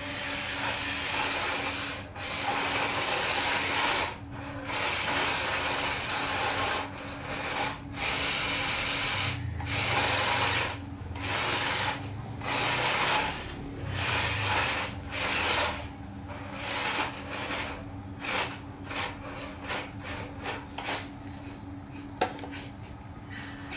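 Small RC dump truck's electric drive motor and gearbox whirring as it drives over a gritty floor, in long runs at first and then in short stop-start bursts as it manoeuvres. A steady low hum sits underneath.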